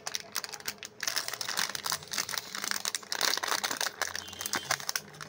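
Plastic chocolate-bar wrapper crinkling and crackling as it is handled and pulled open, the crackles growing dense about a second in.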